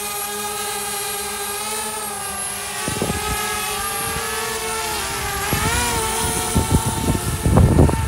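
DJI Spark quadcopter's propellers running with a steady multi-tone whine that wavers and shifts in pitch as the drone swings close overhead. From about three seconds in, gusts of wind rumble on the microphone, growing louder near the end.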